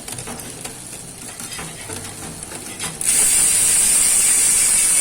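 Speedone Soldier six-pawl bicycle rear hub freewheeling: scattered ratchet clicks at first, then about three seconds in a sudden loud, steady, high-pitched buzz of the pawls running over the ratchet ring.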